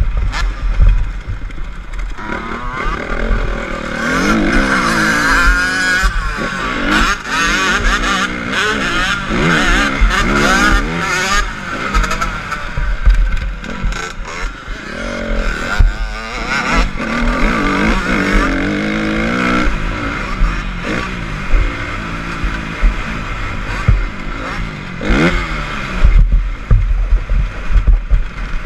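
Honda CRF250 four-stroke single-cylinder motocross bike engine, revving up and dropping back over and over as it accelerates and shifts around a dirt track, with wind buffeting the microphone.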